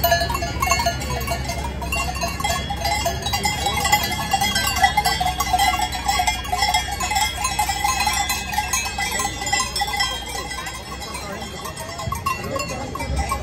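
A herd of goats walking past with their neck bells clanking and ringing continuously, and goats bleating among them. The bleating thins out towards the end as the herd passes.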